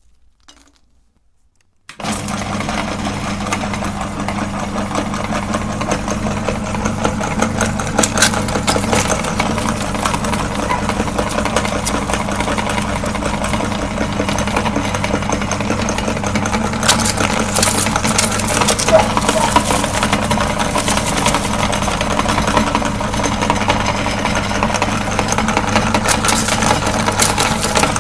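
Electric meat grinder switched on about two seconds in, then running with a steady motor hum. Frequent cracks and crunches sound over the hum as material is crushed in it.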